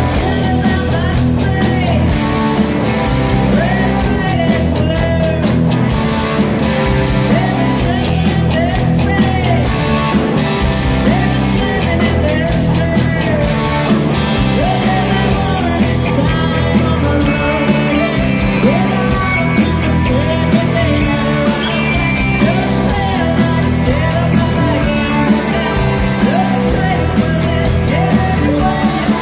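Live rock band playing loud on stage: electric guitars and drums with a sung lead vocal over them.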